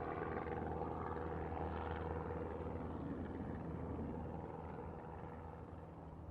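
Single-propeller Cessna light airplane's piston engine and propeller droning overhead as it flies past. It holds steady, then fades from about four seconds in as the plane moves away.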